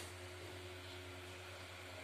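Faint steady low hum with an even hiss over it: room tone.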